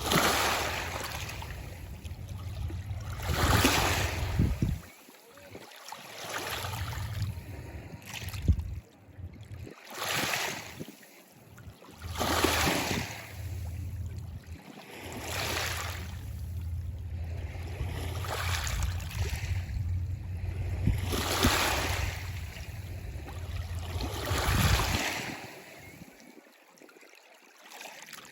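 Small waves breaking and washing on a shore, one surge about every three seconds, over a low rumble. The surf quietens near the end.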